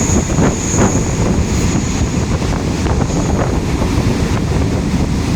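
Passenger train running, a steady low rumble mixed with wind buffeting the microphone.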